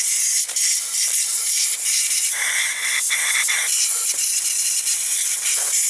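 Can of compressed air spraying through its straw nozzle into an AR-15 lower receiver, blowing out leftover water and Ballistol mix to dry it. A continuous loud hiss, its tone fuller for about a second midway.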